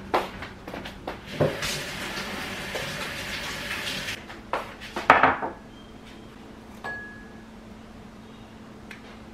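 Kitchen sounds: a few light knocks of dishes, then a tap running steadily for about two and a half seconds, then a louder clatter of bowls or containers being handled and set down, and a short single beep a little later.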